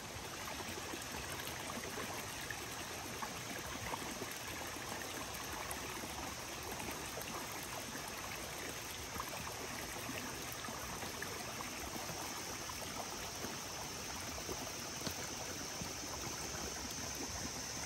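Stream water running steadily, an even rushing with no breaks.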